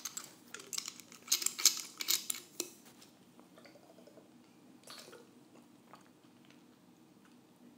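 Hip flask taken from a shirt pocket and opened: a quick run of small clicks, clinks and scrapes with clothing rustle, loudest in the first few seconds. A brief faint sound follows about five seconds in as it is drunk from.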